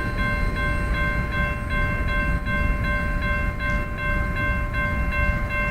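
Railroad grade-crossing bell ringing steadily, about two or three strokes a second, over the low rumble of a passing train.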